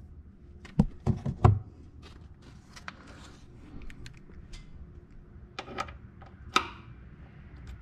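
Irregular clicks and knocks of a hand ratchet and socket on an extension working the fasteners of a car's underbody cover, with louder knocks a little over five and a half and six and a half seconds in.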